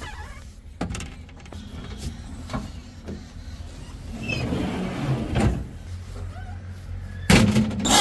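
Diesel engine running low and steady under scattered knocks and clanks. Near the end a much louder, rhythmic clatter starts abruptly.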